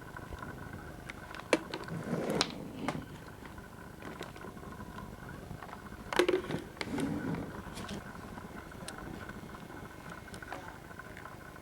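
Hard items being handled by hand: a few sharp clicks and short rustles about a second and a half to three seconds in, and again around six to seven and a half seconds in, over a faint steady hum.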